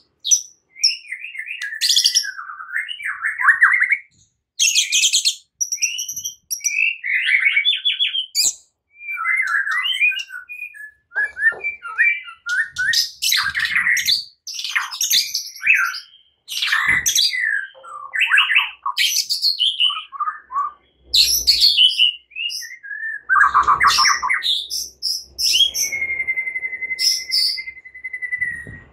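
White-rumped shama singing a rapid, varied stream of whistles, trills and chattering phrases, ending with one long steady whistle.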